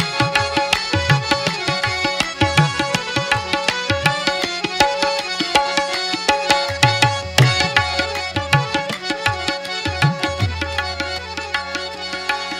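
Instrumental interlude of a Sufi song: a hand drum plays a quick, dense rhythm under sustained melodic notes, without singing.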